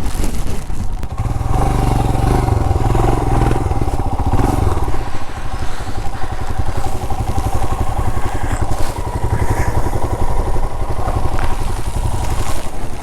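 Royal Enfield Himalayan's 411 cc single-cylinder engine running with a steady, even beat.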